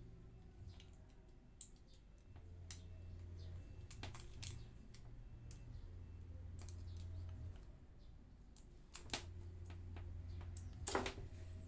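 Scattered small clicks and taps of a screwdriver and hands working on an opened plastic three-pin mains plug and its cable, with a cluster about 9 seconds in and a louder group near the end, over a faint steady low hum.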